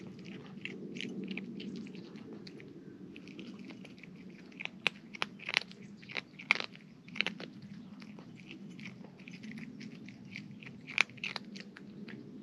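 A cat chewing dry kibble: a run of sharp crunches, thickest from about four to eight seconds in and again near the end.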